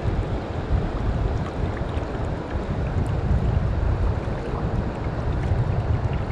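Strong wind buffeting the microphone, a rumbling, gusting noise, over the steady rush of river water flowing past.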